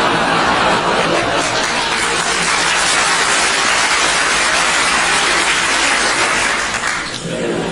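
Theatre audience applauding and cheering, a dense steady wash of clapping that dies down about seven seconds in as chatter returns.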